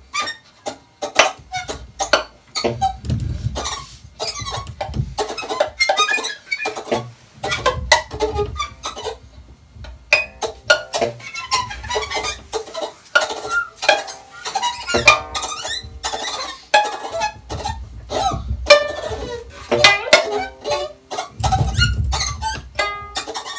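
Experimental improvised music from a small acoustic ensemble: dense clicking and clattering from instruments being struck and scraped, with irregular low thuds. Held tones come in about ten seconds in.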